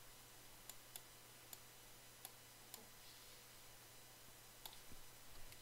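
Faint, scattered clicks of a computer mouse, about half a dozen over five seconds, as text is selected on screen.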